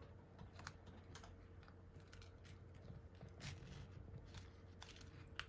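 Faint, irregular clicks and light scrapes of a thin metal pry tool being worked under an iPad's screen glass, over a low steady hum.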